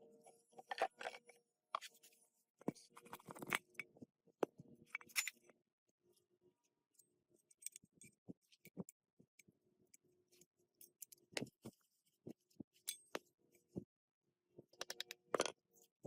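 Metal engine parts and hand tools being handled: scattered clicks, clinks and short scrapes with quiet gaps between them.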